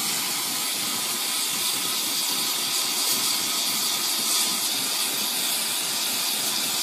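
Oxyacetylene torch flame hissing steadily as it heats the edge of a Damascus steel knife blade for differential edge hardening.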